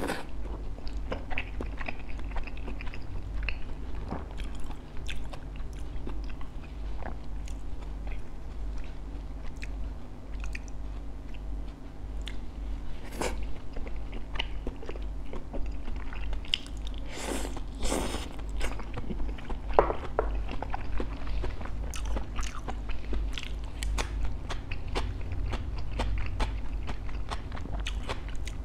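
Crunching bites and chewing of bánh khọt, small crispy-edged Vietnamese rice-flour pancakes with a shrimp topping, with a thicker run of crunches about seventeen seconds in.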